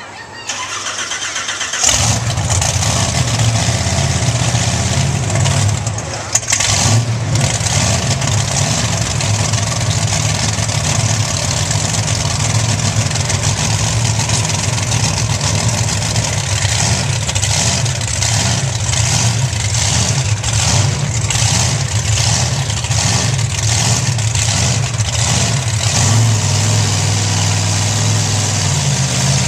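Bigfoot monster truck's engine starting about two seconds in, then running steadily at idle.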